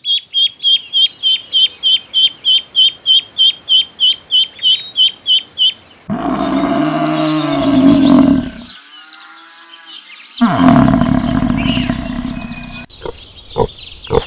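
Ducklings peeping in a rapid, even series, about four peeps a second, for the first six seconds. Then an African buffalo lows twice in long, deep calls. Near the end a pig gives a quick run of short grunts.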